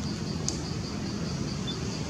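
Outdoor ambience: a steady low rumble under an insect chirping in a fast, even pulse, about six or seven chirps a second, with a single sharp click about half a second in.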